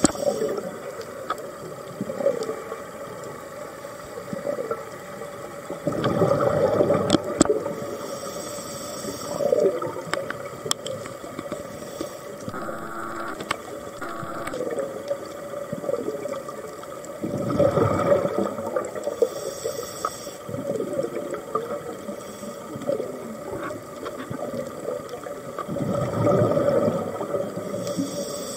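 Scuba diver breathing through a regulator underwater: exhaled bubbles rush and gurgle out in loud surges several seconds apart, over a steady hiss of the water and camera housing.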